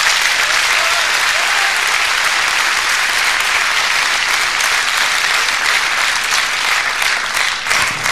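A large theatre audience applauding, a dense steady clapping that holds throughout.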